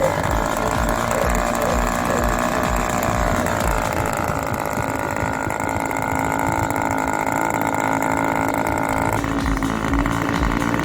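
RC model airplane engine running steadily at a constant drone, its pitch shifting slightly about a third of the way in and again near the end.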